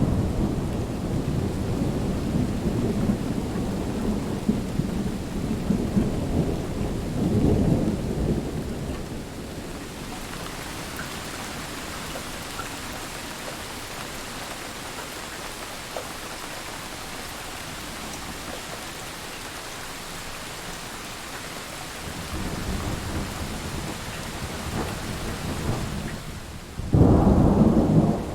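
Thunderstorm: steady heavy rain, with low rolling thunder that dies away over the first several seconds, returns near the end and ends in a sudden loud crack of thunder.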